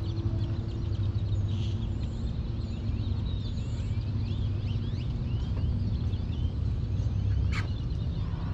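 Birds chattering in many short, high chirps and whistles over a steady low hum.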